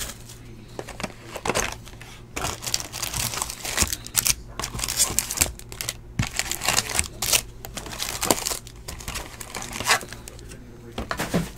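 Crinkling and rustling of the wrappers of 2015 Panini Valor football card packs as a stack of packs is handled, in irregular bursts with a few sharper crackles.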